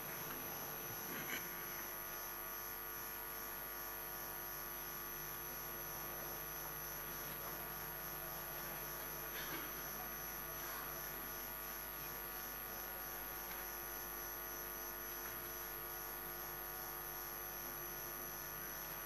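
Faint, steady electrical hum with a thin high-pitched whine above it, unchanging throughout; no other distinct sound.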